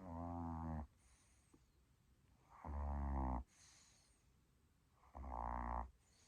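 Snoring: three pitched, rasping snores, each under a second long and about two and a half seconds apart, each followed by a faint breath out.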